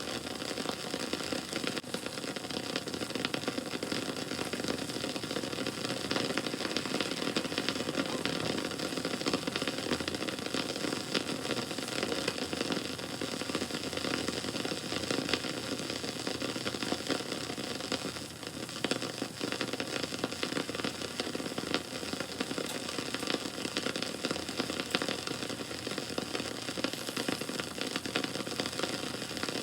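Wood campfire burning and crackling steadily, a dense run of small snaps and pops over the constant rush of the flames.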